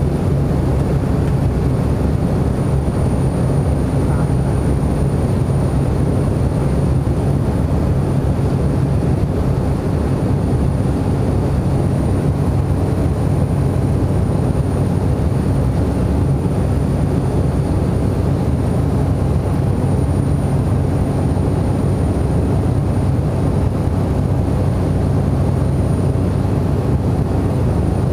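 Cessna Caravan's PT6A turboprop engine and propeller droning steadily in flight, heard from inside the cockpit. There is a deep, even hum with a faint high whine above it.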